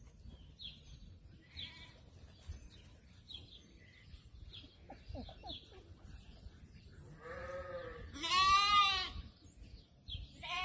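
Sheep bleating: two calls run together about seven to nine seconds in, the second louder and wavering, and another bleat starts near the end. Faint high chirps come earlier.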